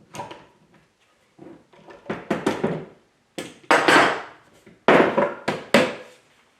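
Wooden parts being handled and set down: several clusters of clunks and knocks with some scraping, the loudest about four and five seconds in.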